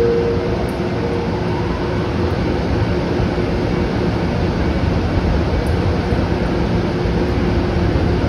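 EH200 electric freight locomotive pulling slowly into a platform, giving a steady hum with a few held low tones from its running equipment.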